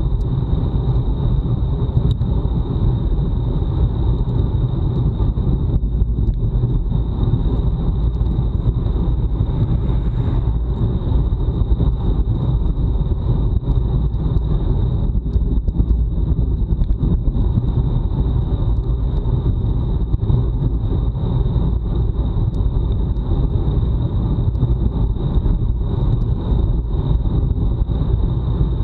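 Steady wind buffeting on an action camera's microphone on a road bike at racing speed, with tyre and road noise underneath; a thin, steady high-pitched tone runs throughout.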